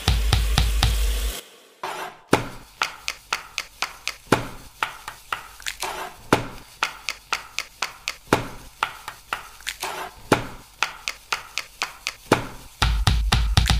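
Hands slapping and rubbing a raw whole chicken coated in seasoning, a run of irregular sharp smacks a few times a second. Background music with a beat plays for the first second or so and comes back near the end.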